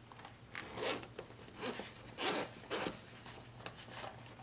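Zipper of a small hard-shell headphone case being unzipped around the case in a series of short scratchy pulls.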